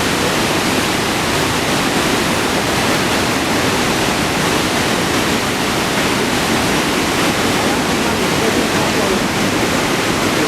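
Iguazu Falls in flood: a huge volume of water pouring over the falls, heard as a loud, steady, unbroken rush of noise.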